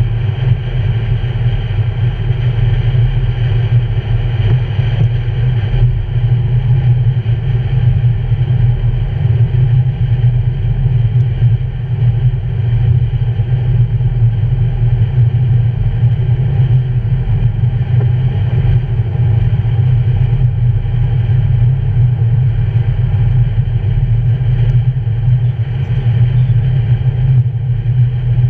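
Steady road noise of a car cruising at highway speed, heard from inside the cabin: a constant low hum of engine and tyres with a fainter hiss above it.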